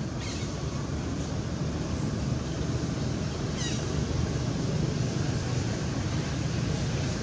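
Steady outdoor rumble and hiss, like wind on the microphone, with a couple of faint, brief, high falling chirps, one near the start and one about three and a half seconds in.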